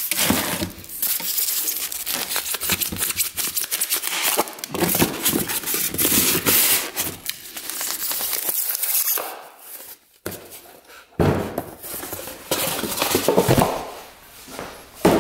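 Plastic crinkling and rustling with scattered clicks and knocks, from a new ATV battery and its packaging being handled. It goes almost quiet a little past halfway, then a few louder knocks follow.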